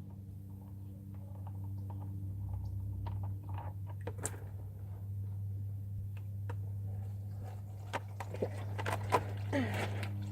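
Scattered clicks, knocks and scrapes of tools and parts being handled during an oil change, growing busier and louder near the end, over a steady low hum.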